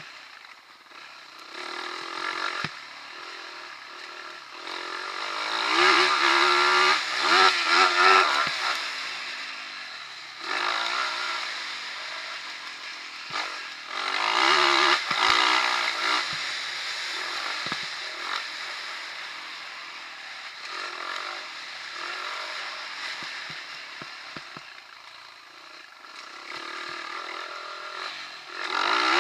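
Motocross bike engine running hard over a dirt track, heard from on board. It revs up and down, with loud rising runs about six seconds in and again around fourteen seconds.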